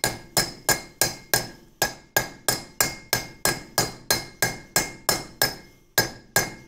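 Hammer tapping a new rear wheel bearing into a Nissan Micra K12's brake drum, striking around the bearing's outer race in an even rhythm of about three blows a second. Each blow gives a bright metallic ring. The bearing is still going down into its bore and is not yet seated; it gives a change of tone once it seats.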